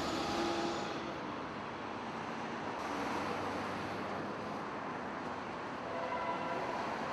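City street traffic: a minibus passes close by, a little louder in the first second, then a steady wash of road noise from passing cars.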